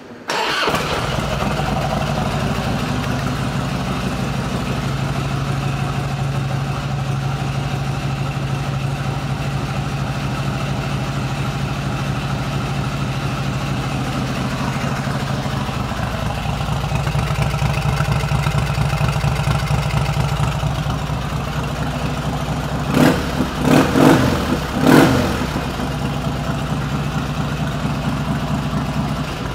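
2000 Harley-Davidson Heritage Springer's Twin Cam 88B V-twin starting up and settling into a steady idle through its fishtail pipes. About three-quarters of the way through the throttle is blipped three times in quick succession, then it drops back to idle.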